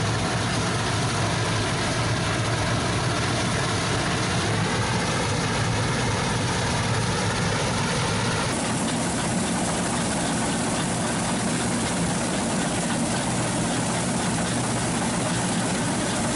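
Bizon combine harvester's diesel engine and threshing machinery running steadily under load while harvesting wheat. The tone shifts abruptly about halfway through.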